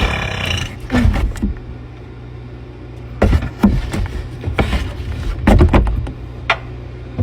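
A loud, drawn-out belch from a young woman trails off about half a second in. Then a steady low hum follows, broken by several short sounds.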